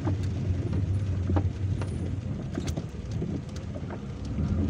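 Car driving on a wet road, heard from inside the cabin: a steady low rumble of engine and tyres with a few light taps scattered through.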